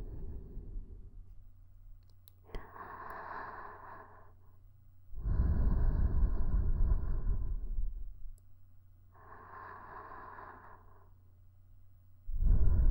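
Slow, close-up breathing into a KU100 binaural dummy-head microphone: softer, hissy breaths alternate with louder, fuller ones that rumble low on the microphone, about one loud breath every seven seconds.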